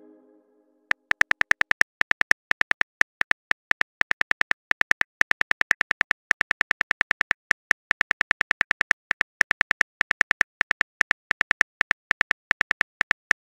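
Phone keyboard typing clicks: a quick, even run of short taps, about eight a second, in bursts with brief pauses, as a text message is typed out letter by letter.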